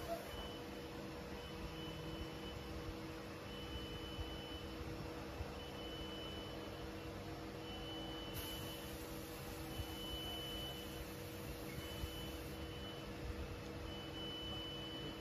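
CNC turning-milling lathe humming steadily, with a high beep repeating on and off about once a second.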